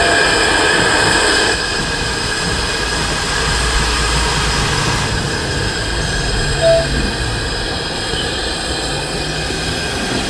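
Steam hissing from the George England saddle-tank locomotive Palmerston as it moves off slowly, over a low rumble. The hiss is loudest at first and eases about a second and a half in. A short squeak comes about two-thirds of the way through.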